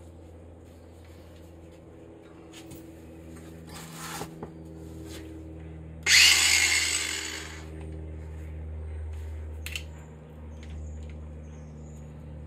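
Cordless angle grinder triggered briefly: a loud rushing burst about six seconds in that dies away over a second and a half, with a shorter burst about two seconds earlier. Light knocks of tools and the spring strut being handled, over a steady low hum.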